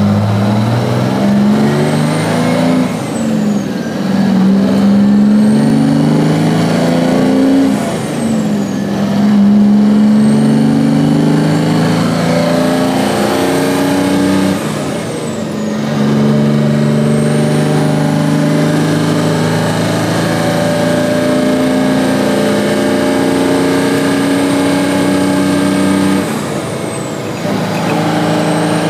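A 1988 GMC Brigadier dump truck's turbocharged Detroit Diesel 6-71 two-stroke engine, heard from inside the cab, pulling up through the gears. Its pitch climbs in each gear and drops back at each of several shifts of the 13-speed Eaton transmission. A high turbo whistle rises with the revs and falls away at every shift.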